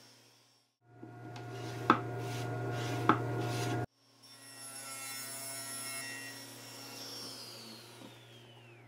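SawStop table saw running while plywood is ripped into strips, with two sharp knocks about two and three seconds in; the sound cuts off abruptly twice. Near the end the blade's whine falls steadily in pitch as the saw winds down.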